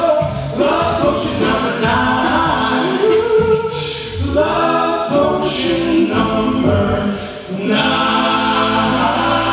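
Five-man a cappella vocal group singing in close harmony through handheld microphones, with no instruments. A steady low bass note comes in near the end.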